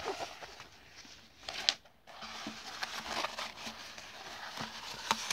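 Diamond-painting canvas and its paper cover sheet rustling and crinkling as hands unroll it and smooth it flat on a table, with one sharp tap about a second and a half in.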